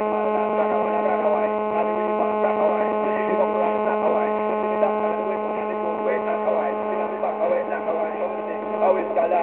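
A loud, steady electrical-sounding hum with a stack of even overtones, switching on suddenly just before and holding one pitch throughout, over a busier jumble of background sound.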